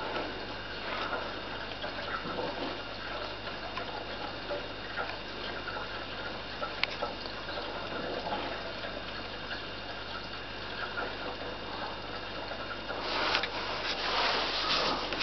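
Neff dishwasher at the start of its program, with steady water running inside the machine and a few faint clicks. A louder rush of water comes in near the end.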